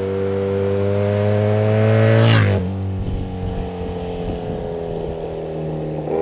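Motorcycle approaching at speed and passing close by, its engine note dropping sharply in pitch with a brief whoosh as it goes past about two and a half seconds in, then running on as it moves away.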